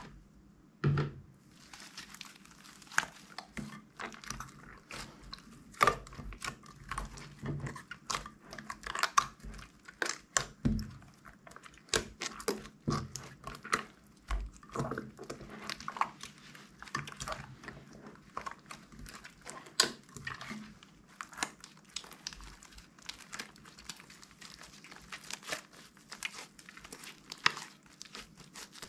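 Red slime being squeezed, stretched and kneaded by hand: a continuous run of irregular sticky crackles, clicks and small pops, several a second.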